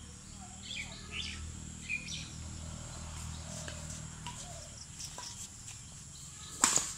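Birds chirping in short calls during the first couple of seconds, over a steady high background tone. Near the end comes one sharp loud crack of a badminton racket striking the shuttlecock in a rally, with fainter ticks of lighter shots before it.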